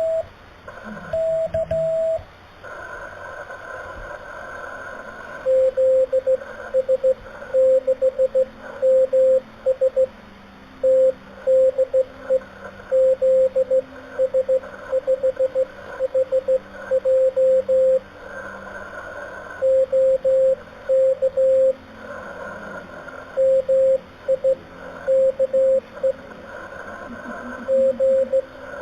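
Morse code on a ham radio receiver: a single steady tone keyed on and off in dots and dashes, sent slowly, with receiver hiss between the characters. A higher-pitched tone keys briefly at the start, and the lower tone carries the sending from about five seconds in.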